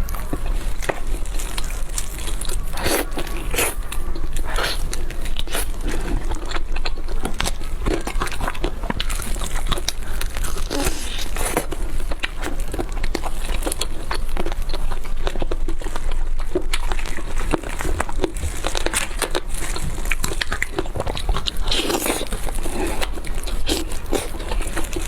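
A person eating chicken: biting and chewing, with many small irregular crackly clicks throughout.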